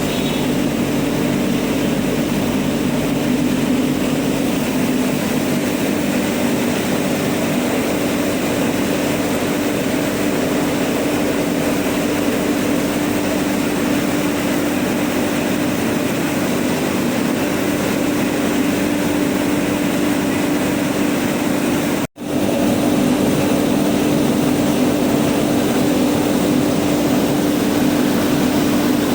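Rice milling machine running steadily with a loud, even mechanical drone and a hiss over it. The sound breaks off for an instant near the end and resumes unchanged.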